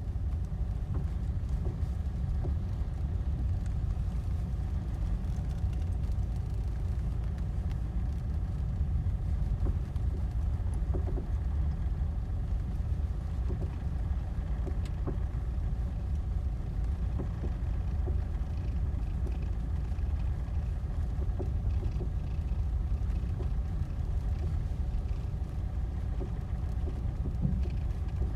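2007 Ford Mondeo Mk4 TDCi on the move: a steady low rumble of car and road noise, with a deep knocking from the suspension now and then, which the owner cannot yet put down to any one part.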